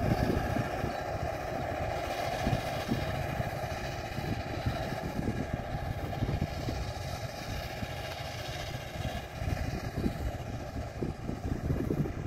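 A T-150K tractor's YaMZ diesel engine running steadily under load as it pulls a cultivator through the soil, easing off a little in loudness as the tractor moves away.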